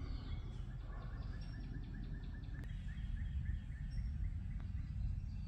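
Birds chirping, one repeating a short note about three times a second for a couple of seconds, over a steady low rumble of wind and phone handling. A single faint click comes near the middle.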